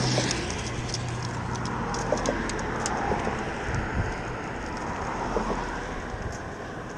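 Road traffic passing on a highway bridge: the engine and tyre noise of a vehicle going by, loudest at the start and fading toward the end, with a few light clicks in the first few seconds.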